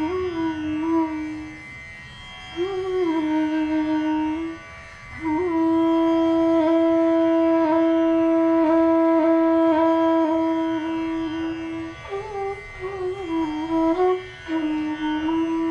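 Bansuri (bamboo transverse flute) playing a slow melody in raag Patdeep over a steady drone. Short ornamented phrases with pitch bends come first, then one long held note for several seconds from about five seconds in, then another ornamented phrase before a final held note.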